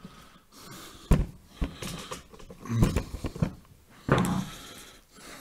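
A few irregular soft knocks and thumps, the sharpest about a second in and a fuller, lower one a little after four seconds.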